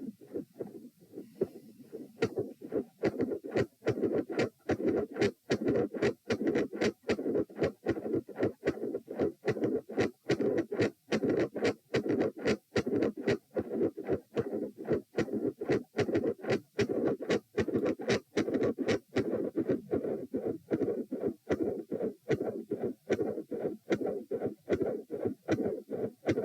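Heart sounds heard at the chest, beating steadily: loud first and second sounds, both split, so each beat comes as four sounds, with a midsystolic murmur. Quieter for about the first two seconds.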